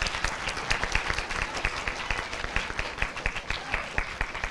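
Audience applauding, many hands clapping together, the clapping dying away near the end.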